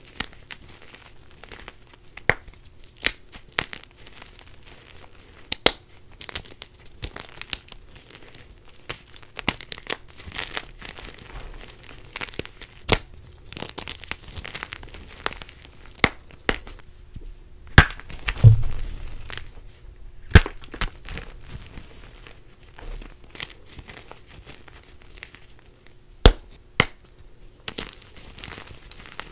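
Blocks of gym chalk crumbled and crushed by hand: irregular sharp snaps and crunches as chunks break apart, with one dull thump about two-thirds of the way through.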